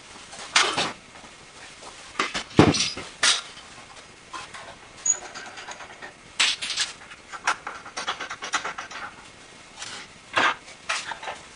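Wooden bandsaw parts being handled and knocked as the saw is taken apart: a series of clunks, scrapes and rattles. The loudest is a thud about two and a half seconds in, and a run of quick rattling follows a few seconds later.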